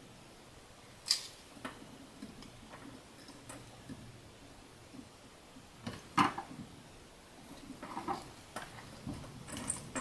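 Scattered light clicks and taps from hand work with a soldering iron, solder wire and a small metal aviation plug held in a helping-hands clamp. The sharpest tap comes about six seconds in, with a cluster of smaller clicks near the end.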